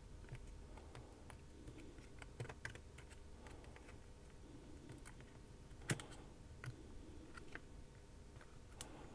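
Faint, scattered small clicks and taps of metal tweezers working at the glued-in charge-port assembly inside an iPod Touch's metal case, with a sharper click about six seconds in.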